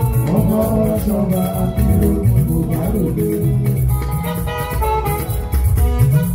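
Live band music with guitar and a steady shaker rhythm. A man's voice sings over it through a microphone for the first few seconds, then the guitar and other instruments carry on alone.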